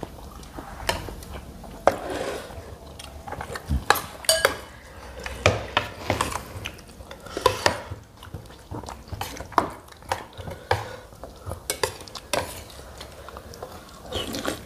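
Spoons and forks clinking and scraping on ceramic plates while people eat, in irregular sharp clicks.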